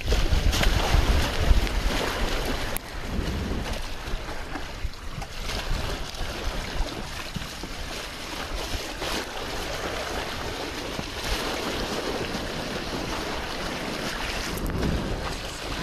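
Sea water rushing and splashing along the bow of a small sailboat under way, with wind buffeting the microphone, heaviest in the first few seconds.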